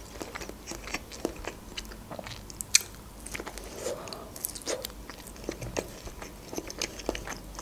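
Close-miked chewing and biting of sausage: scattered soft, wet mouth clicks and crackles, with one sharper click a little under three seconds in.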